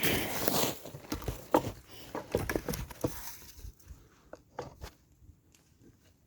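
Footsteps crunching in snow: a burst of steps and crunching at first, then scattered lighter crunches that die away about halfway through.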